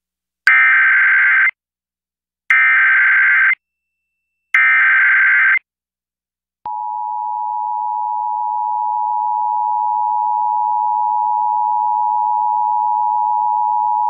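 Emergency Alert System signal for a Child Abduction Emergency (AMBER Alert). It starts with three one-second bursts of SAME header data tones, about a second apart. Then, about halfway through, the steady two-tone EAS attention signal (853 and 960 Hz) begins and holds.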